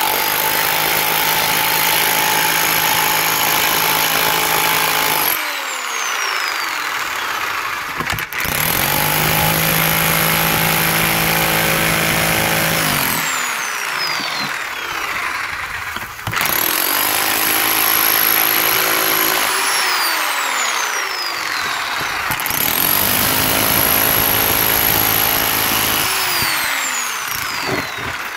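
Bauer 1-1/8 in. SDS rotary hammer in chisel mode, hammering a chisel bit into the mortar joints between bricks to break them loose. It runs in about four long bursts of several seconds each, the motor's pitch dropping and climbing again each time the trigger is eased off and squeezed.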